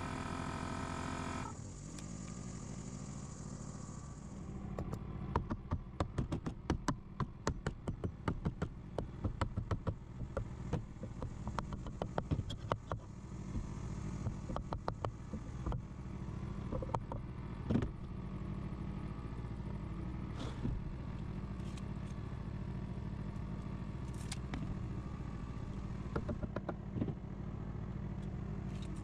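Claw hammer striking a 2x4 pine frame: a fast run of light taps, then scattered single blows, over a steady low hum. A pitched hum at the start cuts off about a second and a half in.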